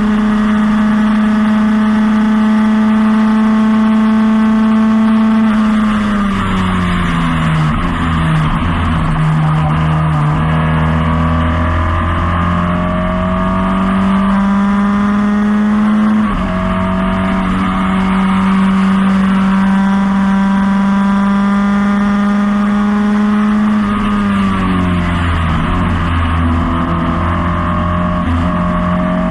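1977 Lola T440 Formula Ford's 1600 cc Ford Kent four-cylinder engine heard onboard at full race pace. It holds steady high revs, then falls in pitch through lifts and downshifts for a corner about six seconds in. It climbs back under acceleration with a clear upshift a little past halfway, then drops again for another corner near the end before rising once more.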